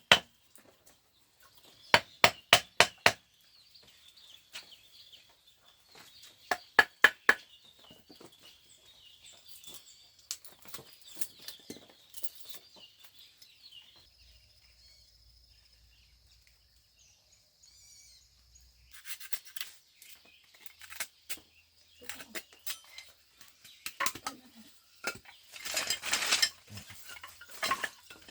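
Hammer blows on bamboo in quick bursts of four or five strikes, one about two seconds in and another about seven seconds in, followed by scattered lighter knocks and clatter that grow busier near the end.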